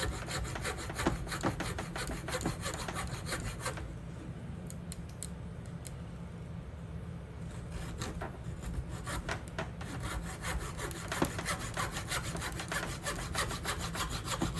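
Coping saw cutting through a wooden dowel with quick back-and-forth scraping strokes; the sawing stops for a few seconds partway through, then picks up again and carries on.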